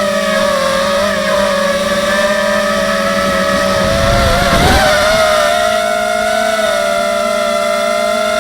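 Electric motors and propellers of an H250 FPV quadcopter whining steadily. About halfway through, the pitch dips and then rises, with a brief rush of wind noise.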